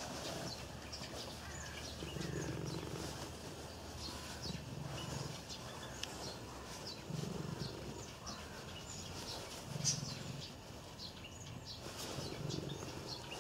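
Domestic cat purring while being stroked, the purr swelling about every two to three seconds with its breathing. Small birds chirp faintly in the background.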